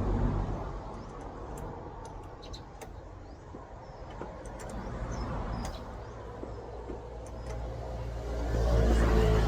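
A motor vehicle's engine rumbling. It eases off about a second in and builds up again near the end.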